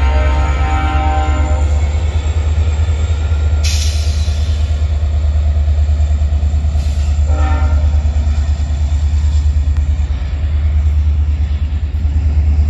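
VIA Rail EMD F40PH diesel locomotive pulling away with its horn sounding. The first blast ends about a second and a half in and a second short blast comes about halfway through, over a steady low rumble.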